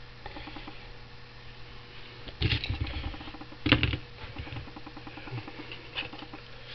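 Metal parts and tools being handled on a wooden workbench: light ticking and rustling, with two louder clattering knocks about two and a half and nearly four seconds in, and a few small clicks later, over a faint steady hum.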